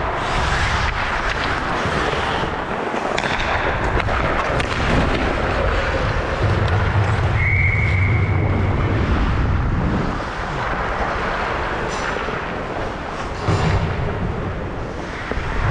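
Recreational ice hockey play in an echoing rink: sharp bangs and clatter from sticks, puck and boards over a constant noisy wash, with a short high whistle-like tone about seven and a half seconds in.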